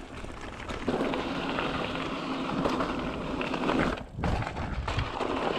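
Mountain bike tyres rolling and crunching over loose gravel at speed, with wind on the microphone. The noise breaks off briefly just after four seconds, followed by a few low thuds as the bike comes back down on the trail.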